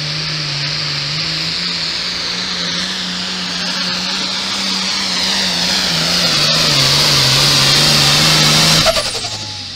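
Diesel pulling-tractor engine at full throttle dragging a weight sled, loud and steady with a high whine over it, its pitch sagging gradually under the load. The roar grows as the tractor passes close, then drops off abruptly about nine seconds in as the throttle is cut.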